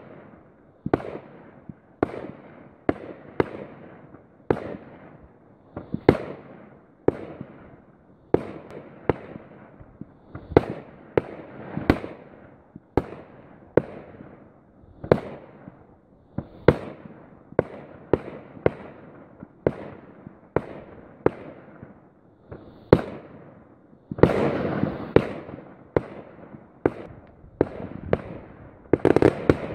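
Fireworks display: aerial shells bursting one after another, a sharp bang every second or so with a short echoing tail after each. About 24 seconds in the bangs come thicker and louder for a moment.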